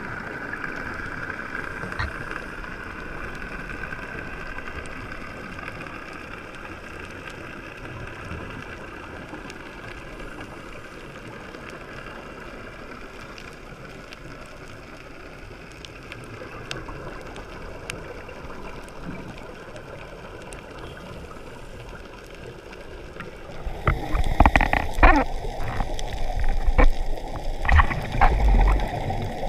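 Underwater ambience with a steady hum, then, near the end, loud gurgling bursts of exhaled bubbles from a scuba diver's regulator.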